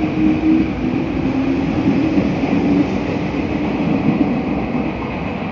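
Meitetsu 6500 series electric train departing an underground platform: steady running noise of wheels on rail with a wavering motor hum as the cars go past.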